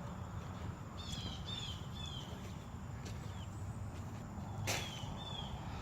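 A bird chirping: a series of short chirps that slide downward in pitch, over a low steady hum. One sharp click sounds a little before the end.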